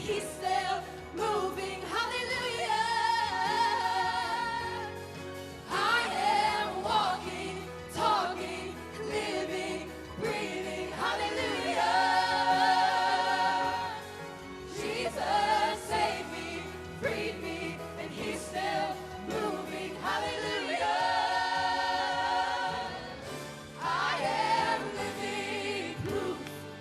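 Live worship music: a group of voices sings long, held phrases a few seconds each over a steady instrumental accompaniment.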